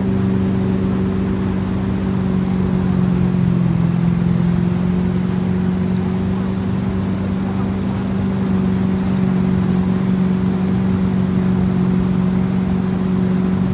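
Tow boat's engine running steadily under way, holding one pitch with a slight dip about four seconds in.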